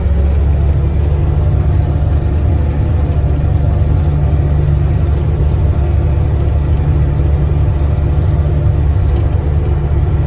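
Farm tractor engine running steadily while pulling a land roller, a constant low drone with no change in speed.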